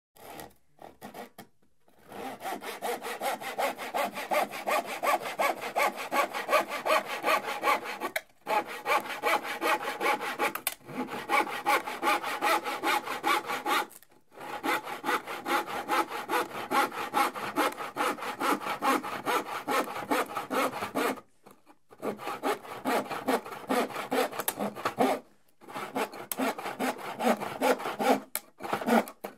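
Hand saw cutting through plywood in quick back-and-forth strokes, about four a second. The sawing breaks off for short pauses every few seconds and then resumes.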